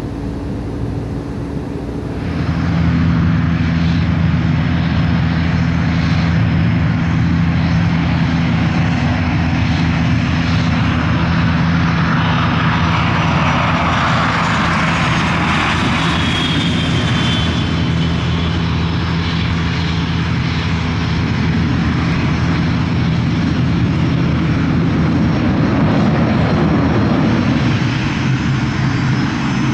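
Business jet turbofans on the runway, a steady hum with a rush of jet noise that swells about halfway through as a Cessna Citation X passes close by.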